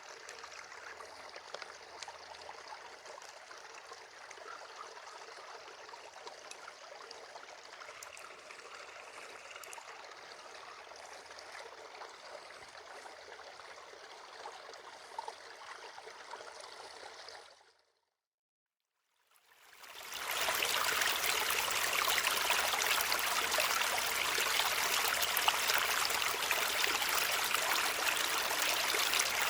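Small waterfalls in a shallow creek, water trickling and splashing steadily. About two-thirds of the way through it cuts out for a couple of seconds, then comes back louder and fuller.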